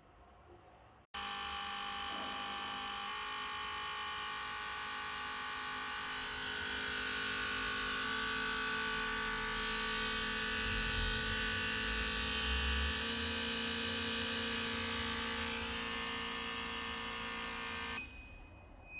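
Fuel injectors being fired on an injector cleaning and flow test bench, a steady electric buzz with many fixed tones that starts suddenly about a second in and cuts off shortly before the end.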